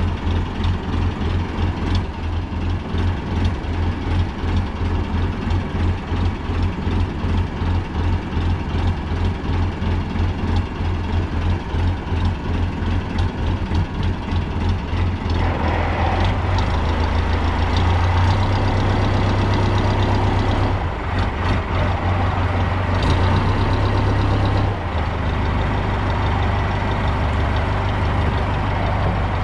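Fishing boat's engine running with a pulsing low throb. About halfway through, the sound turns fuller and steadier, with more noise higher up.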